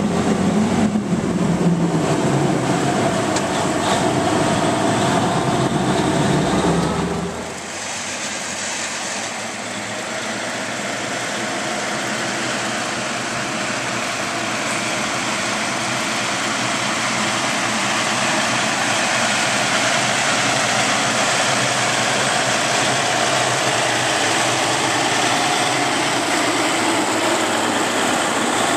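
Scammell Explorer's Meadows six-cylinder petrol engine running under load, heard as a loud low drone from inside the cab. About seven seconds in the sound switches to the same heavy truck and its loaded trailer heard from outside, a broader rumble that slowly grows louder as it approaches.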